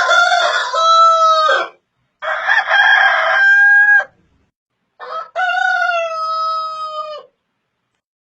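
Rooster crowing three times in a row, each crow a long held call about two seconds long.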